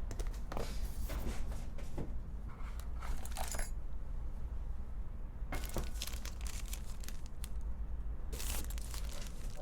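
Packaging being unpacked by hand: crinkling and tearing with small clicks and knocks, in three bursts separated by short pauses.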